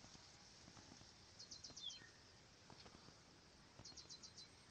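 Near silence, with faint high chirps in quick runs of five or six, repeating about every two and a half seconds.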